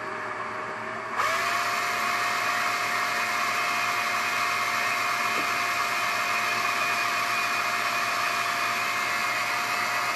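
Electric drill boring a small pilot hole slowly into an ATV's plastic body panel. It runs gently at first, then speeds up about a second in and holds a steady whine.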